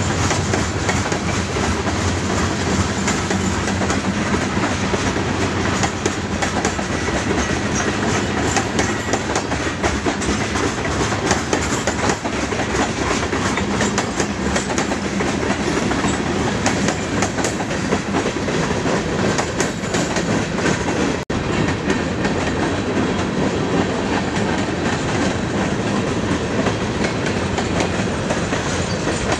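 Freight train of open-top gondola cars rolling past close by: a steady rumble of steel wheels on rail with rapid clickety-clack over the rail joints. The sound breaks off for an instant about three-quarters of the way through and then carries on.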